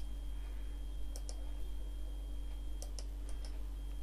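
Computer mouse buttons clicking: a quick pair of clicks a little over a second in, then a few single clicks around three seconds in, over a steady low hum.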